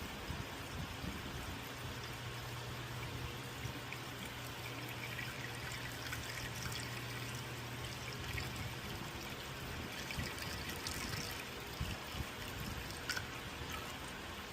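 Water pouring steadily into an empty car radiator through its filler neck, filling a dry cooling system, with a few small splashes later on.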